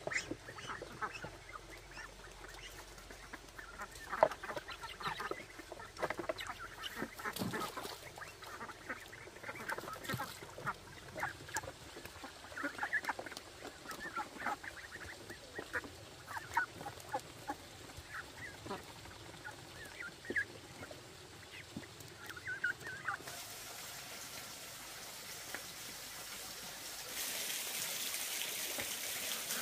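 A flock of domestic ducks calling, with many short quacks one after another. Near the end the calls stop and a steady hiss takes over.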